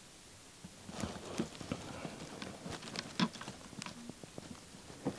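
Rustling and irregular light clicks and knocks of a person shifting on dry ground and brush. The sound begins about a second in, and the sharpest knock comes about three seconds in.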